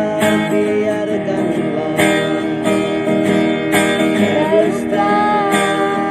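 Music: a guitar-led instrumental break between sung lines of an Indonesian pop ballad, with chords struck about every two seconds and a melody line moving in pitch in the second half.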